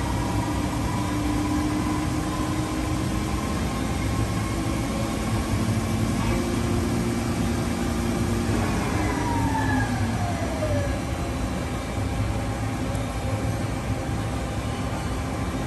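Mori Seiki ZL-35MC CNC lathe running with its spindle and chuck turning, a steady mechanical hum with a held whine. About nine seconds in, a whine glides down in pitch over a couple of seconds.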